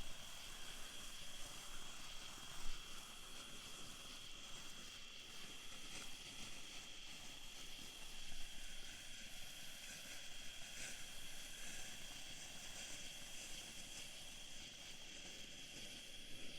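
Consumer box fountain firework spraying sparks with a steady hiss, thinning out near the end as it burns down. Behind it, insects keep up a steady high-pitched trill.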